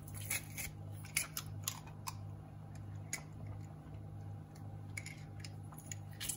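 Stainless steel garlic press clicking as its hinged handles are squeezed on garlic cloves and the pressed garlic is scraped off, in short irregular clicks over a steady low hum.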